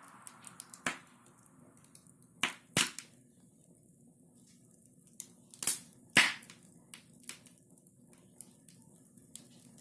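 Sharp, irregular cracks and pops, a dozen or so at uneven intervals with the loudest a few seconds in, over a faint steady hum.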